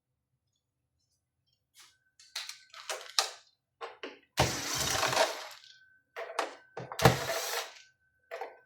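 Clicks, knocks and two longer clattering bursts of hard parts being handled and set down, with a faint steady high-pitched tone in the background.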